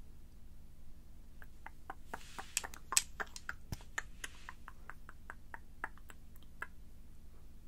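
ASMR mouth sounds: a run of wet clicks and smacks, several a second, with a soft breathy hiss through the middle, stopping near the end.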